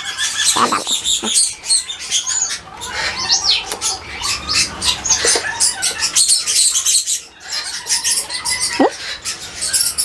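Parrots in an aviary, sun conures among them, calling in a dense stream of short high chirps and squeaks, with a few sliding whistles.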